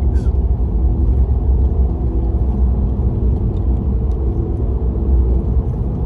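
Steady low rumble of engine and road noise inside a moving vehicle's cabin.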